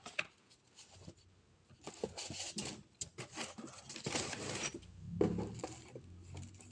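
Rustling, scraping and light clicks of packaging and an object being handled during an unboxing, with a low hum starting about five seconds in.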